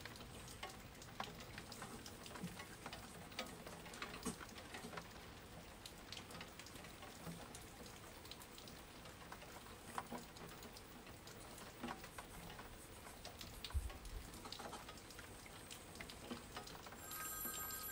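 Rain pattering during a thunderstorm: a steady faint hiss with scattered sharp drop ticks, and a brief low thud about fourteen seconds in.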